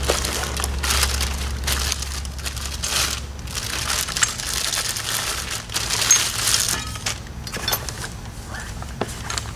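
Clear plastic bag crinkling and rustling in irregular bursts as a security camera is lifted out of its cardboard box and unwrapped.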